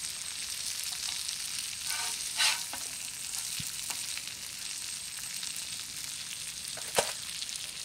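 Oil sizzling steadily under whole red pomfret frying on a large iron tawa, with a few light ticks and one sharp click near the end.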